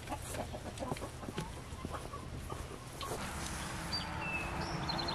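Hens clucking softly, with light clicks of a corrugated plastic hose and its fittings being handled over the first few seconds and a few short high chirps near the end.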